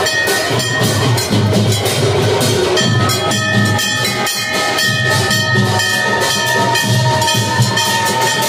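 Loud drum-led festival music with a steady, repeating drumbeat and sustained high tones held over it.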